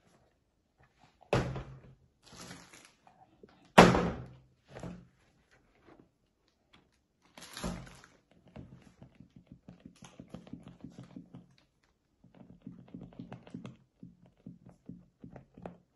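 A few sharp thuds and knocks, the loudest about four seconds in, as rubber hand puppets hit a tabletop and a cardboard toy box. In the second half comes a fast run of light, low pulsing taps.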